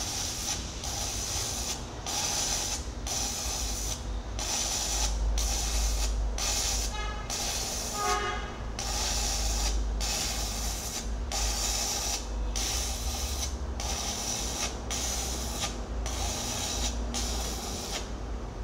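Electric arc welding on the steel teeth of an excavator bucket: the arc crackles and hisses in short runs, broken off and struck again about once a second, over a steady low hum.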